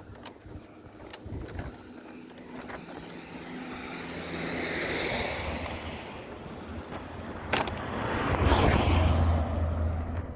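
Cars passing on the road beside the walker: a fainter pass swells and fades in the middle, then a car goes by close about eight seconds in, its tyre noise and low engine sound the loudest part.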